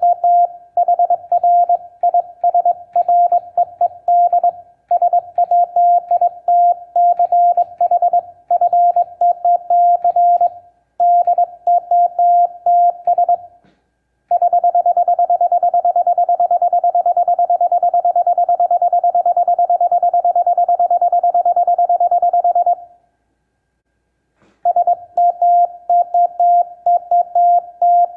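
Morse code sidetone, a single-pitch beep keyed by a homebrew semi-automatic bug key with mechanical dashes and reed-switch dots. Morse characters are sent at speed. About halfway through comes a long unbroken run of rapid, evenly spaced dots lasting about eight seconds, then a short pause, then more Morse.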